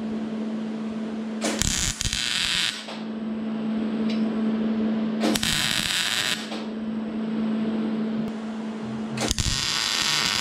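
MIG welder tack-welding steel frame tubing: three welds of a second or so each, the arc sizzling, over a steady hum.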